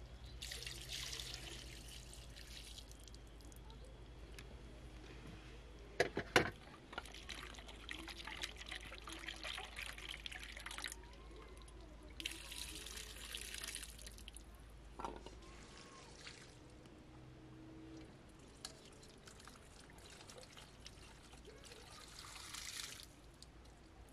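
Water poured in thin streams from an aluminium kettle into a steel bowl, rinsing peeled onions and green chillies, in several spells of splashing trickle. There are a couple of sharp metallic knocks, about six seconds in and again near the middle.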